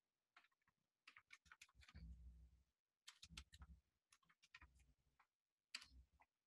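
Faint computer keyboard typing: quick, irregular runs of key clicks with short pauses between them.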